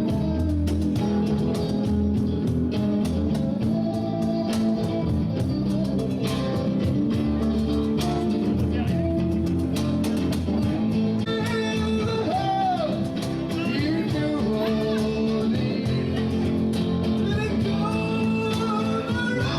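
A live blues-rock band plays an instrumental passage: a lead guitar plays a melody with bent notes over bass and steady drums.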